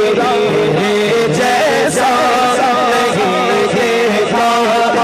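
A man singing an Urdu manqabat into a microphone, a long ornamented melody line whose held notes waver and bend in pitch.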